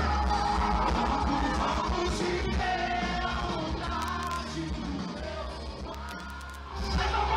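Live rock band playing at a concert with a singer, heavy booming bass and voices yelling along. The music thins out and drops in level for a moment, then the full band comes back in loud near the end.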